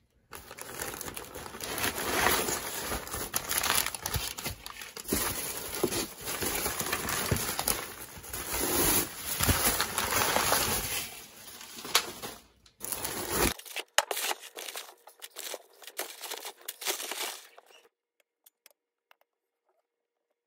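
Crumpled newspaper and plastic packing rustling and crinkling as hands dig through a cardboard box. The rustling is dense for about the first thirteen seconds, then thins to scattered crinkles and stops a couple of seconds before the end.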